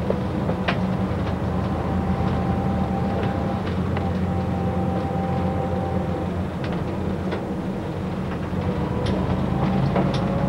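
A city bus heard from inside near the driver while it drives: a steady low engine and road drone, with scattered clicks and a faint thin whine for a few seconds in the middle.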